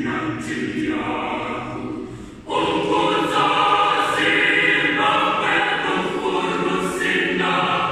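School choir singing a cappella in parts under a conductor. About two and a half seconds in the voices briefly drop away, then the full choir comes back in louder.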